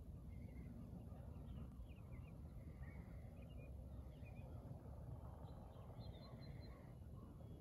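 Faint scattered bird calls and chirps over a low, steady outdoor rumble.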